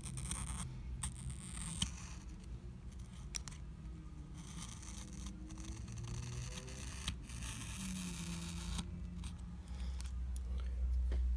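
A thin tool scraping and cutting through the adhesive that holds an iPad mini 2's screen along its sides, in several scratchy strokes with small clicks.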